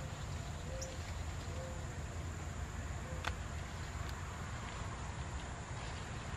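Outdoor garden ambience: a steady high-pitched insect trill over a low rumble, with a few soft short low calls in the first two seconds and one sharp click about three seconds in.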